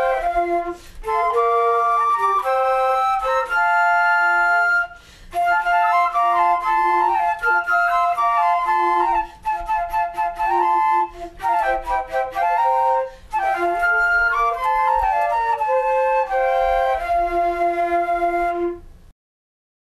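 Instrumental music with several melodic parts sounding together in harmony, in phrases with short breaks, cutting off suddenly near the end.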